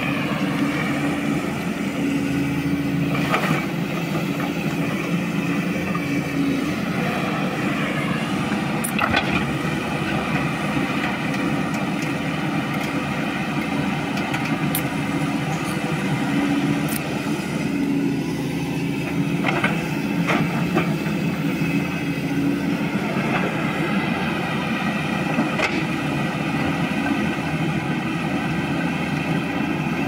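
LiuGong 922E hydraulic excavator's diesel engine running under working load as the machine digs and moves soil, its note swelling and easing a little with the digging. A few short knocks sound from time to time.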